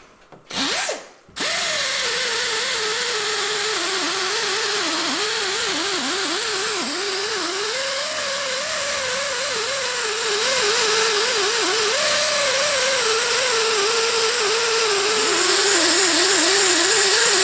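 A pneumatic right-angle tool spins a rubber decal eraser wheel against a truck's painted bed side, stripping off a vinyl 4x4 decal. After a short blip about half a second in, the tool runs without stopping: a whine that wavers up and down in pitch as it is worked over the panel, over a steady hiss. It gets louder around ten seconds in and again near the end.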